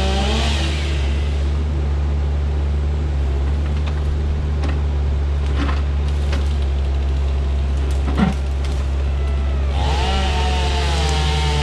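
A heavy machine's engine running with a steady low drone. Over it, a chainsaw fades out just after the start and revs back up, rising in pitch, about ten seconds in. There is a single knock a little after eight seconds.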